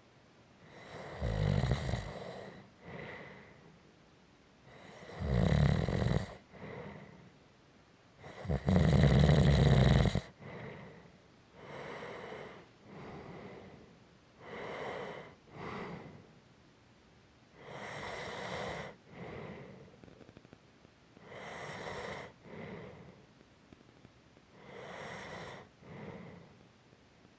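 Snoring: three loud snores in the first ten seconds, each followed by a softer exhale, then lighter, quieter snoring breaths about every three seconds.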